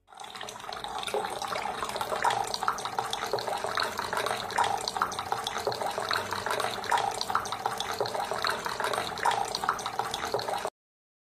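Dense crowd noise of a large dining hall, with cutlery and dishes clinking throughout. It cuts off suddenly near the end.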